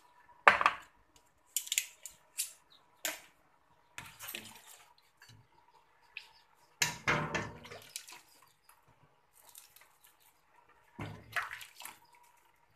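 A metal ladle clinking and knocking against a glass bowl and a stainless steel pot, with laksa broth poured and splashing over rice noodles in the bowl. The biggest pour is about seven seconds in, and another comes near the end.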